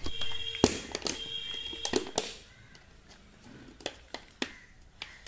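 Sharp clicks and crackles of a thin plastic water bottle being pressed and poked with a pen-like tool to make a hole, half a dozen spaced taps, busiest in the first two seconds.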